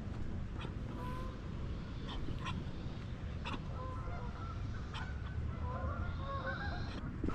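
Geese honking, a few short calls at first and then a busier run of calls in the second half. Scattered sharp clicks and a low rumble run underneath.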